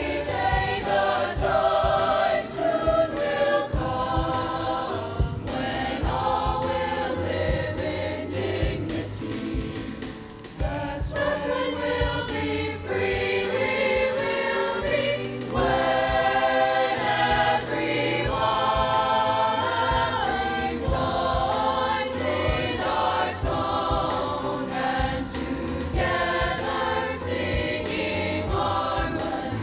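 Mixed choir of boys' and girls' voices singing a song in parts, with piano accompaniment.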